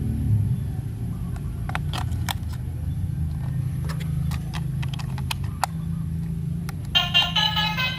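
Remote-control toy vehicle running with a low steady rumble and scattered sharp clicks. About seven seconds in, a tinny electronic melody starts.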